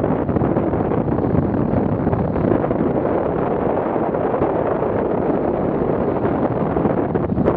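Steady rush of airflow over the microphone of a camera mounted on a hang glider in flight.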